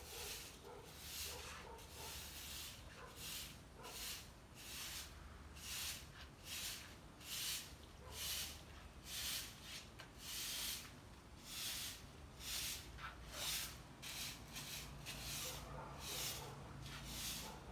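Straw broom sweeping leaves across tiled paving: a steady rhythm of scratchy brushing strokes, about one and a half a second.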